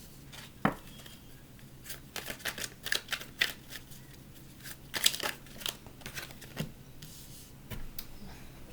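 A deck of tarot cards being shuffled by hand: irregular bursts of quick card clicks and slaps, busiest in the middle, with a single sharp click about a second in.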